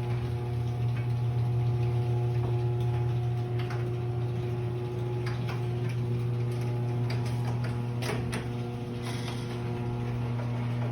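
Electric garage door opener running steadily, closing a sectional garage door: a constant motor hum with light clicks and rattles from the door.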